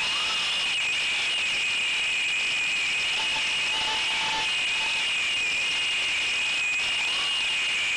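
Brushless motors and propellers of a 3-inch FPV quadcopter whining steadily over a loud hiss, picked up by the RunCam Split Mini camera's microphone on the frame.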